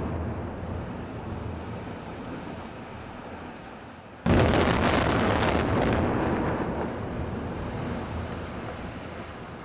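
Explosive demolition of two high-rise tower blocks. The rumble of the first tower's collapse fades over about four seconds. Then, suddenly, a rapid crackle of demolition charges fires in quick succession as the second tower is blown, followed by the long rumble of its collapse, slowly dying away.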